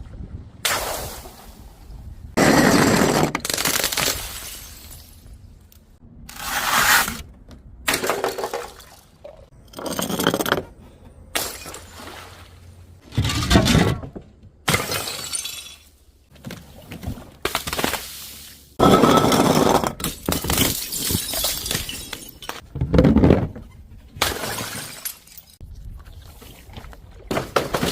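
Glass bottles shattering one after another: more than a dozen sudden crashes a second or two apart, each followed by a crunching, tinkling spill of glass.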